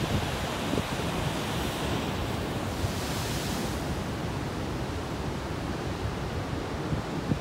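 Pacific Ocean surf breaking and washing ashore, with wind buffeting the microphone. A wave's hiss swells up about three seconds in and fades away again.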